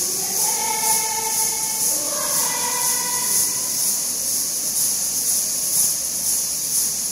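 Timbrels (jingled tambourines) shaken and struck in a steady beat, about two strokes a second, under group singing of a slow tune with long held notes.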